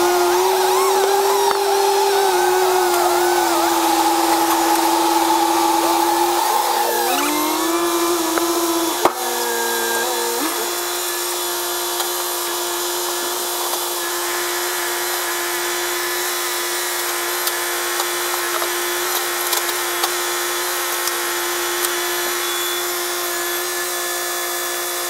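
Prentice 2124 grapple truck's diesel engine and loader hydraulics, sped up by the time-lapse into a high, steady whine. The pitch shifts up and down as the grapple lifts logs, with a sharp knock about nine seconds in, then settles to a constant tone.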